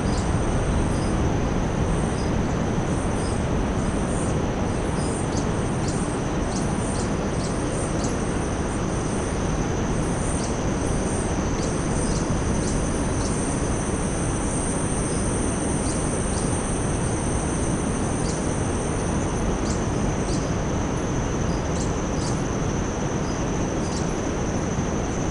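A perched hummingbird singing a series of short, very high ticking notes at irregular intervals. Behind it runs a steady high-pitched insect drone, and a loud, even rushing noise dominates underneath.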